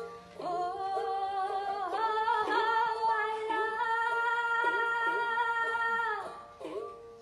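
A woman singing a Sindhi song, holding long drawn-out notes: her voice steps up to a higher held note about two seconds in and breaks off about six seconds in.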